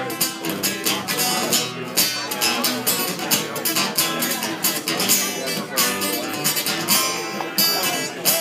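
Acoustic guitar strummed steadily in a live performance, heard through a PA.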